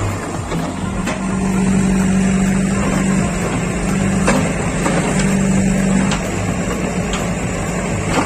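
Backhoe loader's diesel engine running hard and steady as the bucket pushes into a brick wall, with a few faint knocks.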